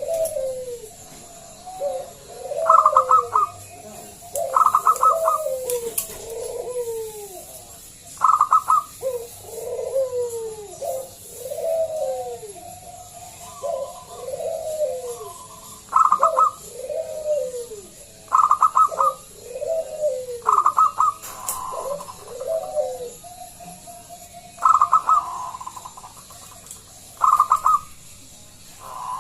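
Zebra dove (perkutut) singing its loud cooing song: about a dozen repeated phrases, each a quick run of clipped, stuttering high notes followed by lower arching coos, roughly every two seconds.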